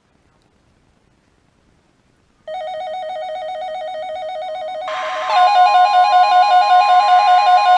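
Weather radio alarm going off: a loud, fast-warbling electronic beep starts suddenly about two and a half seconds in. About five seconds in, the broadcast's steady warning alert tone comes in over it, louder still, announcing that a new warning is being issued.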